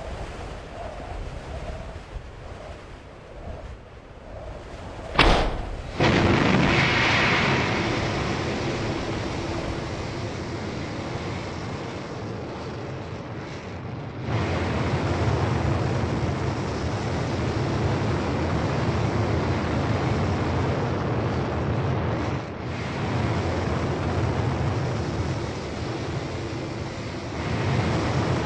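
A sharp bang about five seconds in, followed at once by the steady roar of a Mars lander's descent-stage rocket thrusters. The roar steps up louder and deeper about fourteen seconds in and holds.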